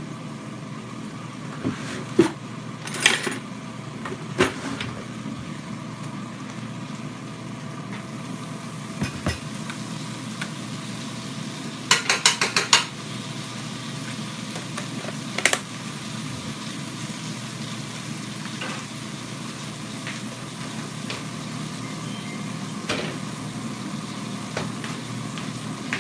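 Sausage and onions sizzling in a skillet, with a spatula scraping and clacking against the pan every few seconds. About twelve seconds in comes a quick run of four or five taps.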